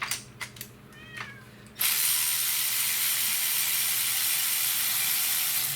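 A ratchet wrench clicks and a cat meows briefly about a second in. About two seconds in, a loud steady hiss of a compressed-air blowgun starts and runs on for about four seconds, as it clears the spark plug well on the 2.4 L Ecotec four-cylinder.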